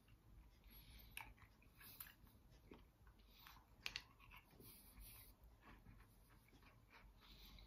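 Near silence, with faint mouth sounds of someone eating an ice lolly and scattered small clicks, two of them sharper, about two and four seconds in.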